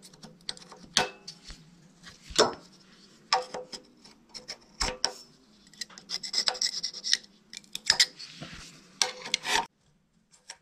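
Small open-end wrench clicking and scraping against the nuts on the carburetor mounting studs of a Honda EB6500 generator engine, in short, irregular strokes as the nuts are turned a bit at a time. The clicking stops about a second before the end.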